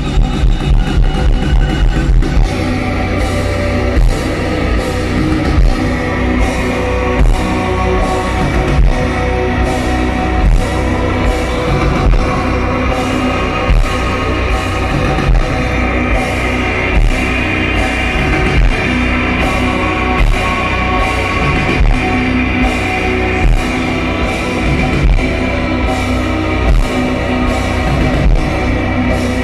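A live rock band playing loud, heavy music with guitar and drums. Fast, even drum pulses in the first two seconds give way to a dense, sustained wall of sound with a steady beat.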